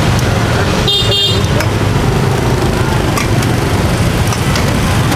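Steady street traffic noise throughout, with a short vehicle horn toot about a second in.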